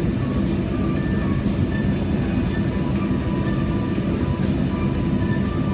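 Steady loud rumble of an airliner cabin while the plane rolls on the ground, with a faint tick about once a second.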